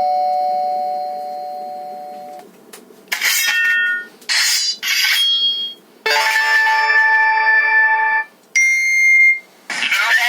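A run of short electronic sound effects played through a homemade amplifier and speakers. A two-tone chime rings and fades over about two seconds, then come several brief tones and bursts, and a longer electronic chime sounds from about six to eight seconds in.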